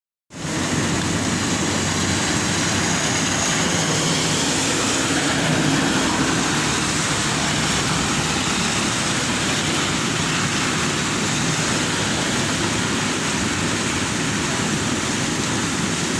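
Swollen river rushing in flood, a loud steady roar of water.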